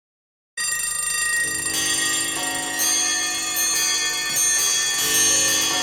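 Dead silence, then about half a second in, bell-like chimes start abruptly, many overlapping ringing tones sustaining, with new strikes joining every second or so.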